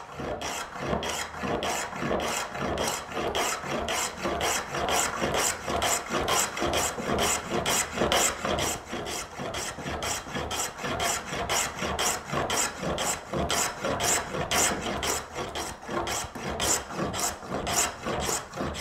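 Hand plane taking rapid, short strokes along a wooden board, cutting shavings, about three strokes a second.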